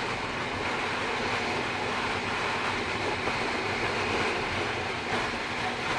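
Steady wind rush on an action camera's built-in microphone, with the even drone of a Bajaj Pulsar NS200's single-cylinder engine underneath, as the motorcycle cruises at highway speed.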